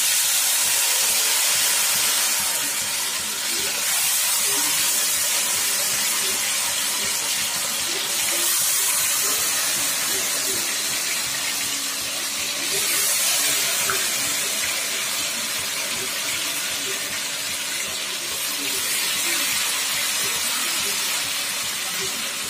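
Marinated chicken pieces deep-frying in hot mustard oil in a kadhai: a loud, steady sizzle that swells several times as more pieces are dropped into the oil.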